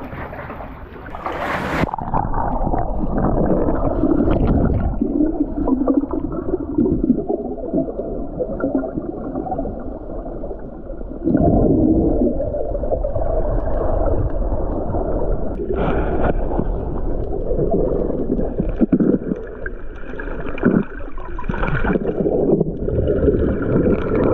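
Splash as an action camera goes into the sea about two seconds in, then the muffled low rumble and gurgling of water heard from the submerged camera, with the swimmer's movement and exhaled bubbles.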